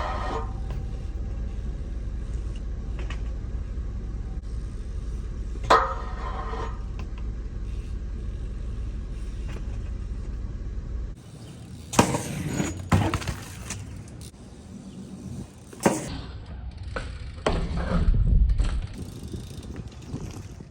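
A Cult Biggie BMX bike being ridden. First there is a steady low rumble of rolling, broken twice by a sharp metallic clank that rings briefly. After an abrupt change about halfway through come several sharp bangs and knocks of landings and impacts, then a stronger rumble near the end.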